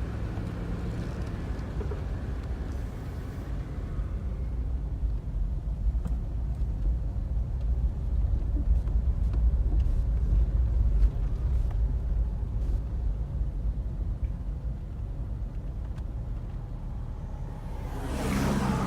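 A car driving along a road: a steady low rumble of engine and tyres that grows louder toward the middle, with a brief rushing swell near the end.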